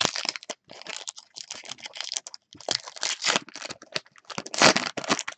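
Foil wrapper of a 2018 Topps Series 1 baseball card pack crinkling and tearing as it is pulled open by hand, in quick dense crackles, loudest about four and a half seconds in.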